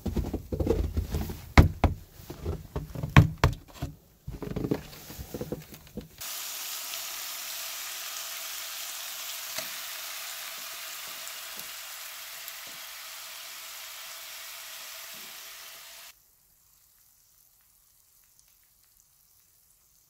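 A run of heavy, irregular thumps and knocks for about six seconds. Then bacon sizzles in a cast-iron skillet as a steady hiss for about ten seconds, which cuts off suddenly.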